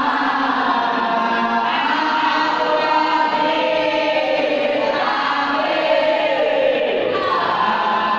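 A group of boys and men singing marhaba together: a sustained, melodic Islamic devotional chant in praise of the Prophet Muhammad, sung standing in unison.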